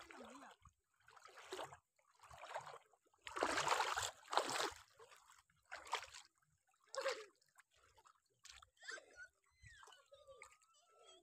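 Pond water sloshing and splashing in irregular bursts as a person wades through knee-deep water, loudest about three to four seconds in.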